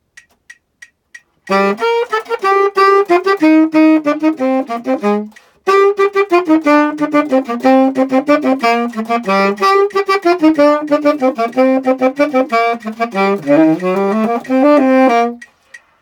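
Tenor saxophone played solo in two fast phrases of quick running notes, the first starting about a second and a half in and breaking off briefly, the second stopping shortly before the end. A metronome ticks about three times a second, heard alone at the start and again once the saxophone stops.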